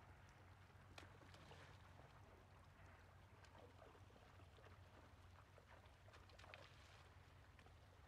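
Near silence: faint trickling and small splashes of a shallow river, with scattered soft ticks over a low steady hum.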